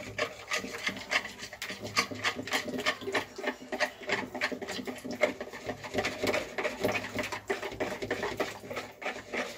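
Wire whisk beating wet cake batter in a plastic bowl: a fast, steady run of ticks and scrapes, several strokes a second, as the wires strike and drag along the bowl.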